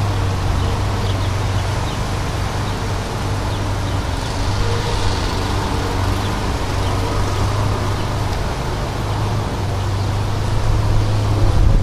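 A vehicle engine running steadily, a constant low hum under an even rush of noise.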